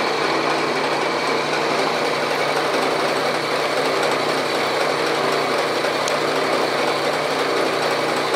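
Bridgeport milling machine running with a half-inch end mill cutting a block of steel at a light 0.025-inch depth, the table fed slowly by its power feed. A steady, even machine noise throughout.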